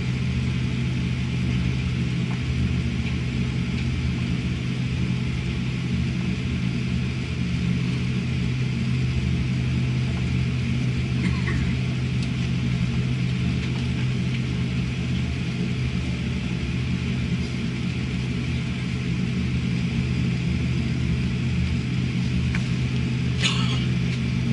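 Steady low droning hum inside a Boeing 787-9 airliner's cabin after landing, even throughout, with a couple of faint brief sounds about halfway and near the end.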